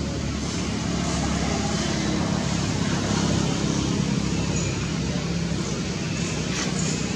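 Steady low rumble of road traffic, with no sudden sounds.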